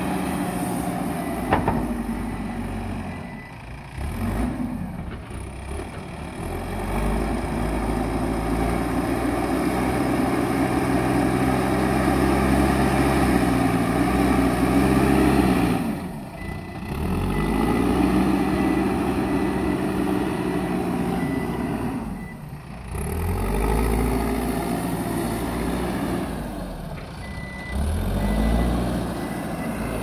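Mahindra SX90 backhoe loader's diesel engine working under load as the front bucket pushes soil. Its note rises and falls repeatedly as the operator revs and eases off. At times a reversing alarm beeps over it.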